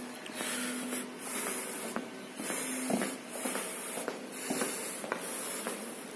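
Footsteps on a hard floor, about one step a second, under a steady hiss.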